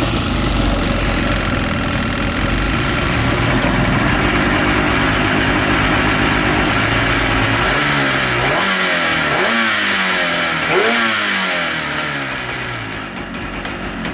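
Yamaha GP800XL jet ski's two-stroke twin engine idling with a rattle, blipped up and down a few times about eight to eleven seconds in, then settling back to idle. The rattle fades when revved and returns at idle, which the owner suspects is rod knock or a loose engine mount.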